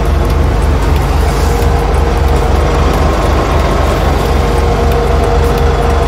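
Mercedes Sprinter 313 CDi's four-cylinder diesel engine idling, heard from inside the cab: a steady low pulsing drone with a constant hum over it.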